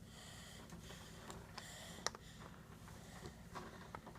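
Near silence: faint room hum with a few soft clicks, the clearest about two seconds in.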